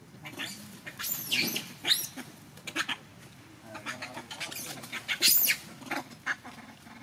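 Newborn baby macaque squealing: a series of high, arching cries, a couple about a second in, lower calls near four seconds, and the loudest squeal a little past five seconds.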